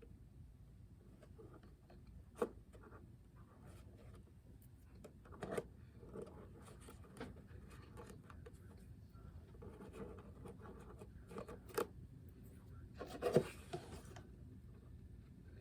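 Light handling noises from stiffened crochet snowflake pieces being fitted and glued together: scattered small taps, clicks and rustles, with a brief denser scuffle of handling about thirteen seconds in.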